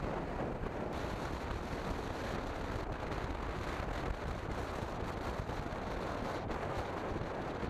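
Steady wind rush on the camera microphone of a moving motorcycle, mixed with road and engine noise, heaviest in the low end. There are no distinct knocks or pitched engine notes.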